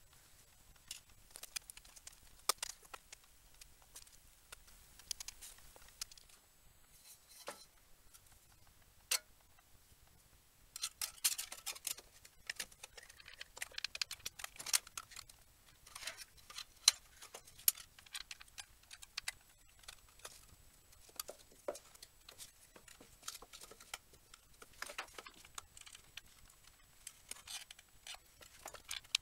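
Irregular small clicks, taps and light scrapes of hand work with tin-can metal and a hot glue gun, busier in the second half.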